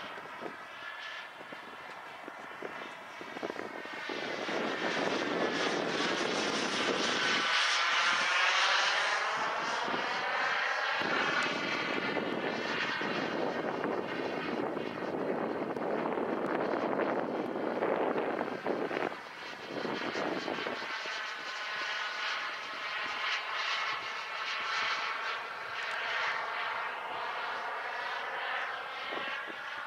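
Wren 160 Pro model gas turbine powering a radio-controlled jet in flight, a continuous whine that rises and falls as the jet passes. It grows louder about four seconds in and eases off after about twenty seconds.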